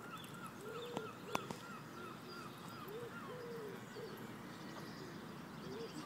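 Faint birds calling: a quick run of short repeated calls over slower, lower calls about twice a second, with two sharp clicks about a second in.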